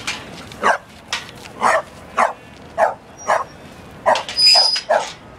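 A pit bull barking over and over in short, evenly spaced barks, about two a second. A brief high steady tone sounds about four and a half seconds in.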